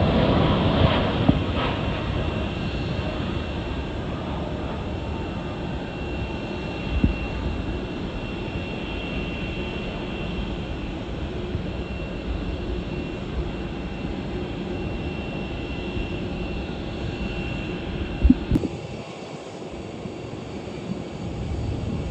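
Jet airliner departing, its engine noise loudest at the start and slowly fading to a steady distant rumble, which drops suddenly to a quieter background near the end.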